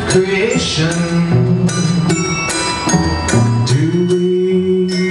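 A live band playing: held low notes under a string of struck, bell-like ringing notes.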